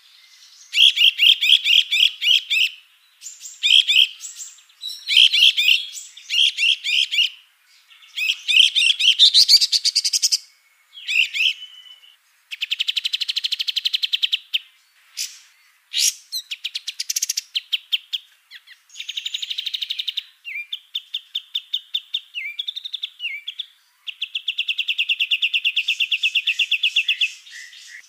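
Songs of cucak cungkok, cililin and kapas tembak songbirds mixed in one continuous recording: a run of quick, high chattering phrases and several long, fast, even trills, one of them rising in pitch, with short gaps between.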